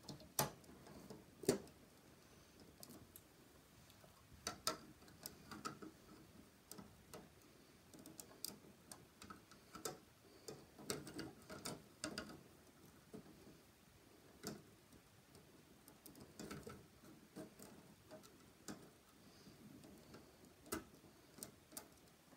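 Faint, irregular clicks and taps of small plastic Lego pieces being handled and pressed together, with a few sharper clicks standing out and small clusters of them now and then.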